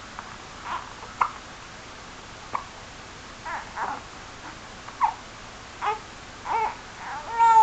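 Two two-month-olds hiccuping together: about nine short, squeaky hiccups, irregular, roughly one every half second to a second. The last, near the end, is louder and drawn out into a short whiny cry.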